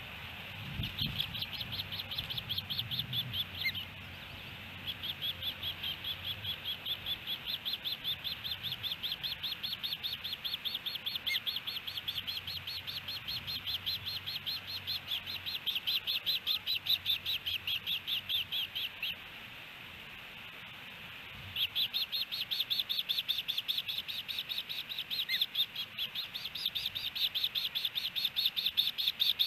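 Ospreys calling at the nest: long runs of rapid high chirps, about four a second, that break off briefly about four seconds in and again for a couple of seconds past the middle.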